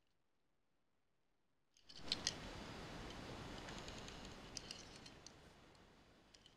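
Fingers handling a small die-cast toy truck close to the microphone. Two sharp clicks come about two seconds in, followed by a rustling hiss with light ticks that slowly fades.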